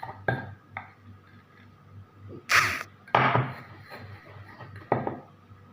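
Kitchen utensils and dishes being handled during food preparation: several sharp knocks, about half a dozen, with two louder, longer scraping sounds near the middle.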